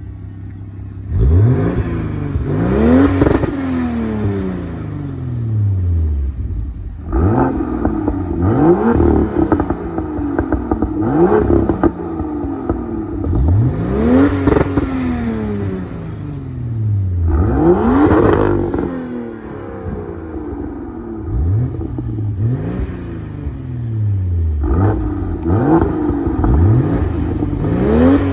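Straight-six car engine revved in about a dozen short blips, the pitch rising sharply and falling back each time, heard through the exhaust.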